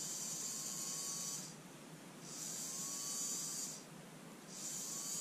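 Small brushed DC motor from a Black & Decker 2.4 V cordless screwdriver, run from a single 18650 lithium-ion cell, whirring in three short bursts with brief stops between. It is being test-run after a tiny drop of oil on its bearings.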